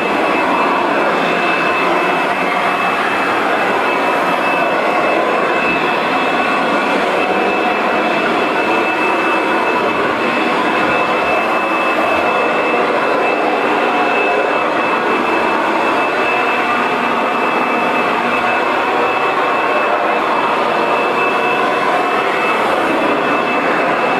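Kirby Sentria 2 upright vacuum running steadily with its bare floor attachment, the brush roll and belt removed so only the motor and rushing air are heard. A thin, steady high whine sits over the rush of air.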